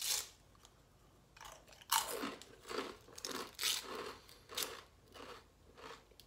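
Close-miked chewing of a crisp fortune cookie: a sharp crack right at the start, then crunchy bites about twice a second.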